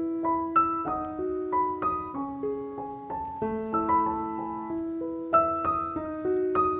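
Background music: a gentle piano melody, with notes struck a few times a second over held lower notes.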